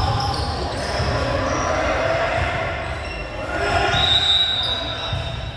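Echoing gym noise between volleyball rallies: a ball bouncing on the hardwood court, sneaker squeaks and scattered voices, with a brief high steady tone about four seconds in.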